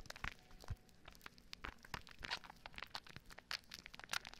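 Soap foam on hands squished over the ears of a binaural microphone, crackling and popping close to the mic as a dense run of small, irregular crackles.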